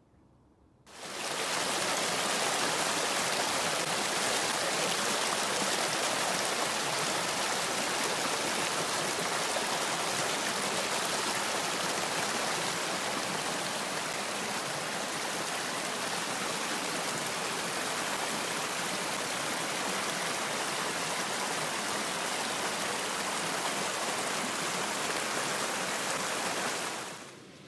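A rushing mountain creek: steady water noise over rocks, fading in about a second in and out again near the end.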